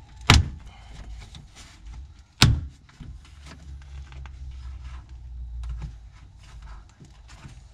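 Plastic door-card clips popping out of a Nissan GQ Patrol's door as the trim panel is pulled off by hand: two sharp pops about two seconds apart, with light scraping and clicking of the panel between them.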